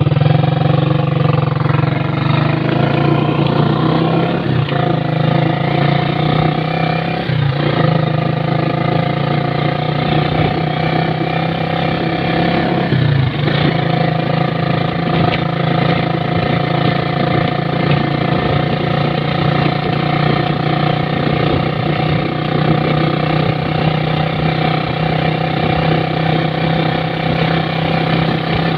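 Motorcycle engine running steadily under way, a loud, even drone that dips briefly three times, about four, seven and thirteen seconds in.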